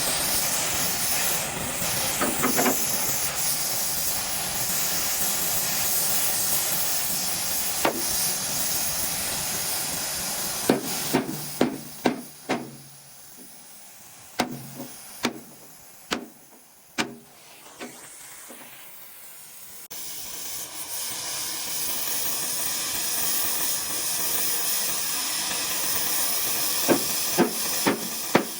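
A steady, loud hiss of escaping air. About twelve seconds in it stops for several seconds, leaving a run of sharp clicks or taps, then the hiss starts again.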